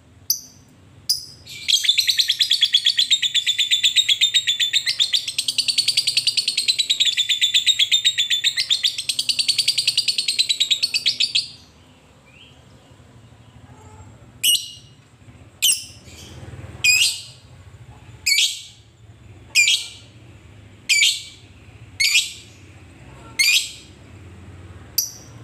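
Fischer's lovebird giving a long, rapid chattering trill (the 'ngekek') for about ten seconds. After a short pause it gives a series of about nine sharp, shrill single calls a little over a second apart.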